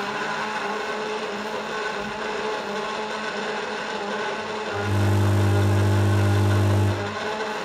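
Sustained electronic drone of steady held tones. About five seconds in a loud low bass tone comes in abruptly, holds for about two seconds and cuts off.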